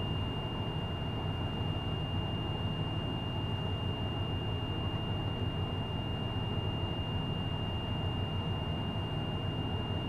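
School bus diesel engine running steadily at idle while its air compressor recharges the air brake system, with the low air pressure warning buzzer sounding one steady high-pitched tone throughout, the sign that brake air pressure is still low.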